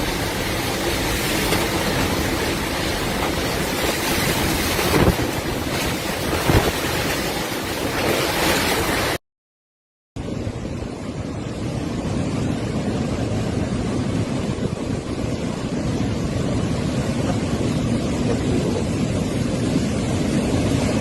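Strong typhoon wind blowing hard, a loud, steady rushing noise. About nine seconds in it cuts out for a second, then resumes duller.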